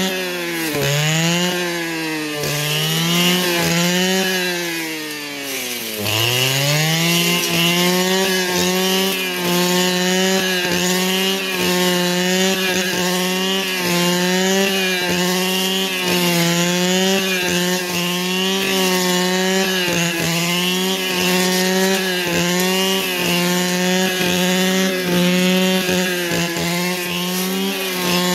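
Small two-stroke engine of a handheld power tool running at high revs, the throttle easing off briefly a few times in the first six seconds, most deeply about six seconds in, then held steady at full speed.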